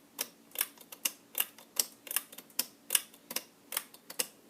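A regular clicking, about two and a half sharp clicks a second, over a faint steady hum.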